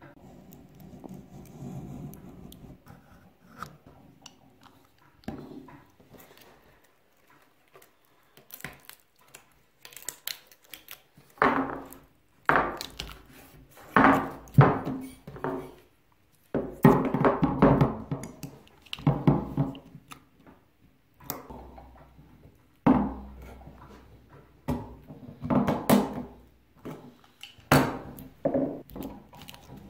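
A utility knife scrapes and cuts through old tape wrapped on the steel tube handle of a 1950s Ransomes Ace Mk.2 push mower. Then the steel handle tubes are moved about on a wooden workbench, knocking and clattering at irregular times from about a third of the way in.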